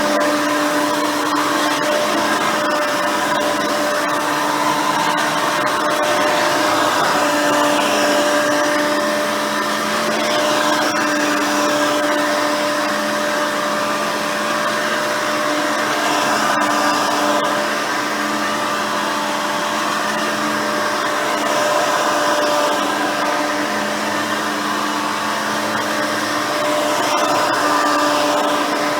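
Hoover Elite 350 upright vacuum cleaner, with a 5-amp motor, seven-blade fan and soft nylon-bristle brush roll, running continuously with a steady whine over rushing air; the level swells and eases slowly every few seconds.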